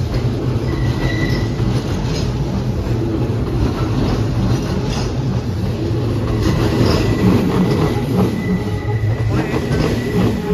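Hanshin Railway electric train pulling out of the station and running close past. There is a steady rumble of wheels on rail, with clacks over the rail joints and a thin wheel squeal now and then.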